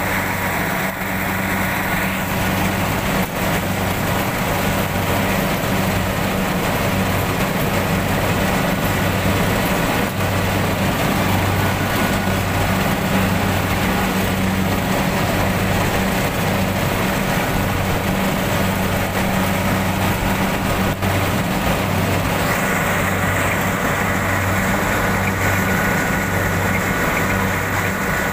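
Rice combine harvester's engine and machinery running steadily: a constant loud drone with a slight regular pulse in the low hum.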